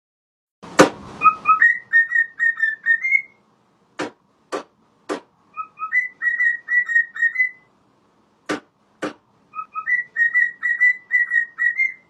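A short whistled tune of quick notes, played three times over, with sharp clicks before and between the phrases.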